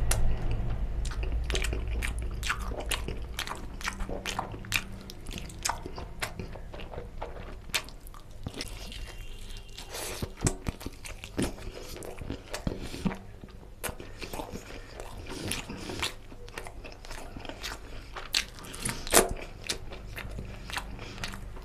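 Close-up eating sounds of a chicken curry leg piece with rice eaten by hand: biting and chewing, heard as many irregular mouth clicks and smacks. A low hum fades out over the first two seconds.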